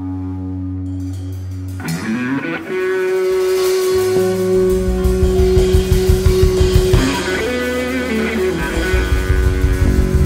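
Live band playing an instrumental intro: after a held opening chord, a Stratocaster-style electric guitar plays long sustained and sliding lead notes over bass guitar, and the drum kit comes in with a steady beat about four and a half seconds in.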